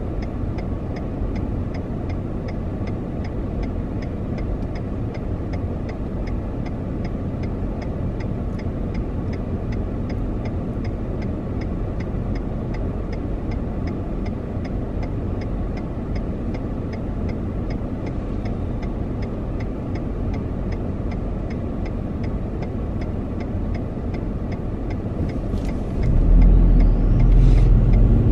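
Car idling at a standstill, heard from inside the cabin as a steady low rumble, with the turn-signal indicator ticking evenly throughout. Near the end the engine noise swells suddenly and grows louder as the car pulls away.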